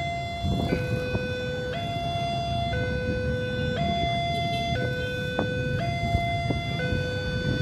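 Electronic two-tone warning siren, alternating evenly between a higher and a lower tone about once a second, over a low background rumble.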